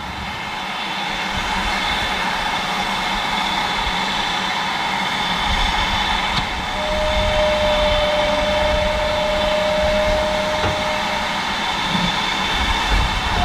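Steam tank locomotive moving a train of coaches slowly, with a steady hiss and rumble. A steady high tone sounds for about four seconds in the middle.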